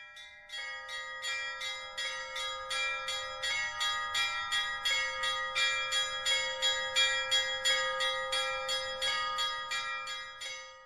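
Orthodox church bells ringing: several bells struck in a quick, steady rhythm of about three strokes a second over held ringing tones, fading out at the end.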